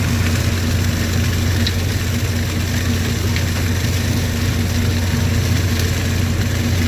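John Deere 4630 tractor's six-cylinder diesel engine running steadily under load while pulling a batwing rotary brush cutter through corn stalks, a constant low drone.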